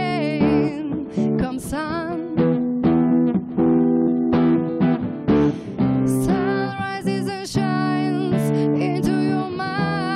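Acoustic guitar strummed in steady chords while a woman sings over it, her held notes wavering with vibrato.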